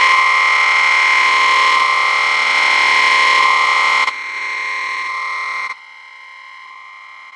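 Harsh electronic synth noise with steady high tones running through it, played from the Launchpad music app. It drops in loudness in two steps, about four seconds and nearly six seconds in, then falls away to faint near the end.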